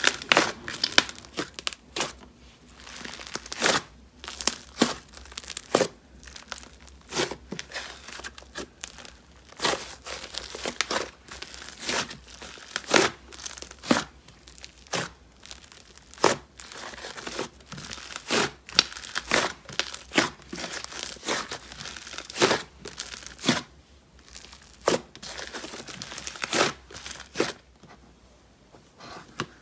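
Fluffy blue butter-texture slime being squeezed, kneaded and folded by hand, with squishing and a constant, irregular crackle of sharp pops as air pockets in the inflated slime burst.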